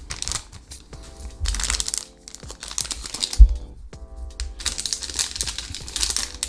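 Plastic packaging bags crinkling as they are handled, in bursts, with background music underneath. A single thump a little past three seconds is the loudest sound.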